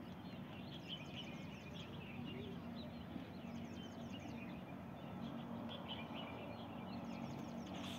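Small birds chirping over a steady outdoor background. Several times, a quick run of high, short descending notes repeats in a cluster.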